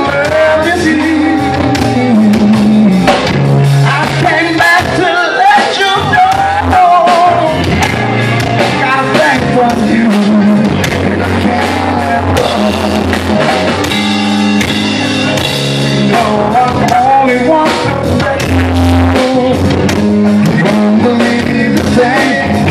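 Live blues-rock band playing an instrumental passage: electric guitar with bending notes over drum kit and keyboard, at full volume.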